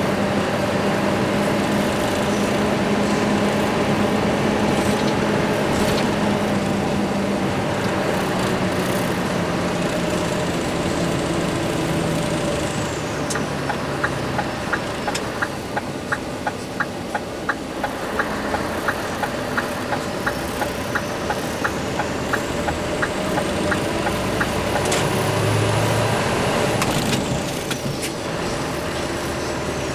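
Scania R500 semi's V8 diesel engine running steadily under way with a full load, heard from inside the cab over road noise. For about ten seconds in the middle, the turn-signal indicator ticks steadily, about two and a half ticks a second.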